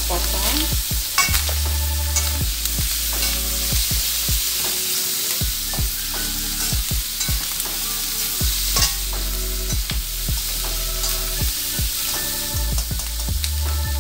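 Chopped onion and minced chicken sizzling in butter in a metal wok, with a steady hiss. A metal spatula stirs the food, scraping and tapping against the wok several times throughout.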